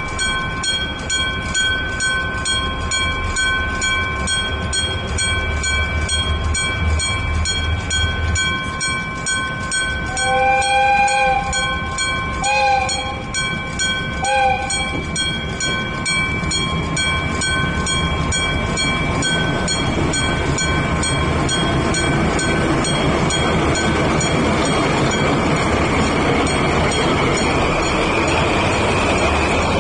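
Japanese level-crossing warning bell ringing in a steady rapid pulse. A diesel freight train sounds a two-note horn three times, the first blast longest, about ten to fifteen seconds in. The train then rolls through the crossing, its rumble and wheel noise growing steadily louder.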